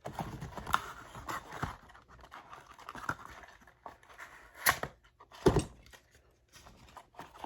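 Packaging being handled and pulled open while unboxing a trading-card box: rustling and tearing, with scattered clicks and two louder knocks around the middle.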